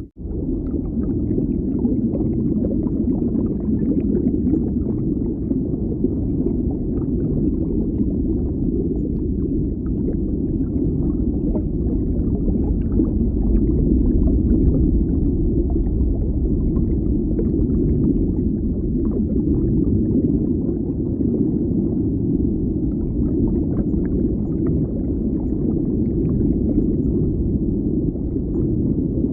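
Deep underwater ambience: a steady low rumble, with faint crackling and bubbling above it. The sound drops out for an instant at the very start, then continues unchanged.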